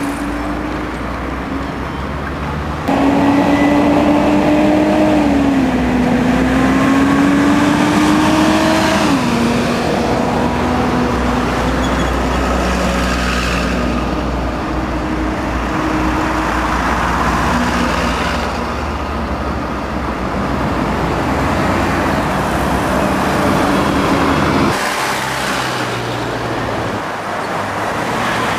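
City buses running and pulling away in street traffic, a steady low engine rumble with a whine that climbs and then drops twice as the bus changes gear. The sound jumps louder abruptly about three seconds in and changes again near the end.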